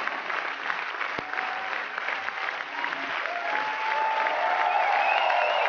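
A studio audience applauding steadily after a stage show. The applause swells from about three and a half seconds in, with pitched sounds rising over it.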